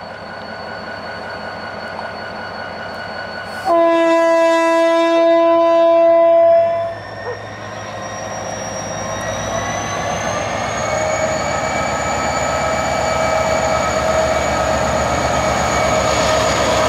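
A diesel locomotive's horn gives one long steady blast about four seconds in, lasting about three seconds, as a railway salute. After it, the approaching locomotive's engine and a high rising whine grow steadily louder.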